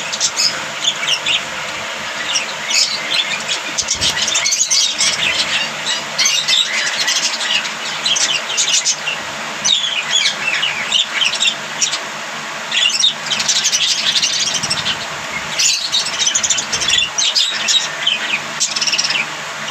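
A flock of budgerigars chattering and warbling: a continuous stream of quick, high chirps and squeaks, over a steady low hum.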